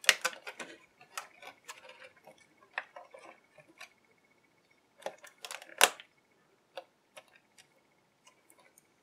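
Light scattered clicks and taps of a hobby knife and fingers working against a clear plastic blister tray as the rubber bands holding the action figures in place are cut, with two louder clicks about five and six seconds in.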